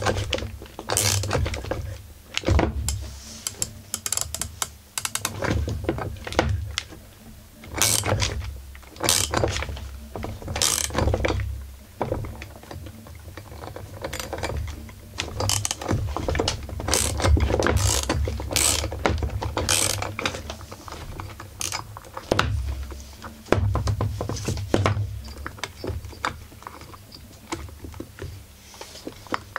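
Ratchet wrench clicking in repeated bursts as it turns the central bolt of a flywheel puller, mixed with metal clanks of the puller and tools, while the puller is tightened against a stuck chainsaw flywheel.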